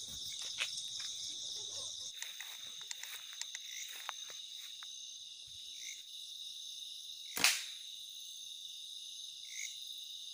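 Steady chorus of night crickets and insects, with a single sharp crack about seven and a half seconds in: one shot from a pre-charged pneumatic air rifle.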